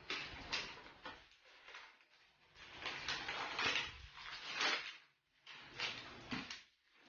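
Paper and gift wrapping rustling and crinkling as it is handled, in several separate bursts with short pauses between.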